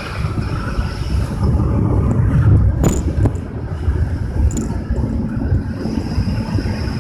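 Steady low rumbling noise, with a single sharp click about three seconds in.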